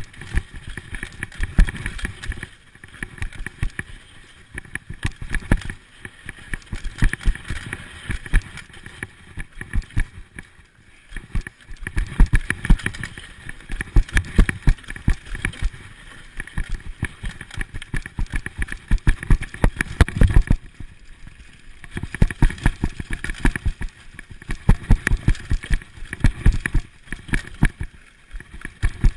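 Mountain bike descending a rough dirt trail at speed: a constant clatter and rattle from the bike and chain jolting over bumps, with wind rushing over the microphone.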